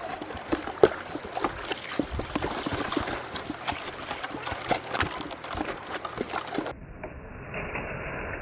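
Gravel and stones rattling with many irregular small knocks, over sloshing water, as a hand-rocked gold rocker box is rocked back and forth. Near the end the sound turns duller and steadier.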